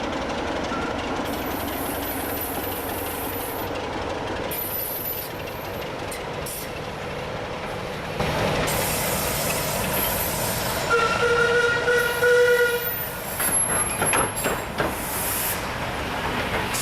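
A train running past with a steady rumble that grows louder about eight seconds in. About eleven seconds in it sounds a horn once for about two seconds, followed by a few sharp knocks.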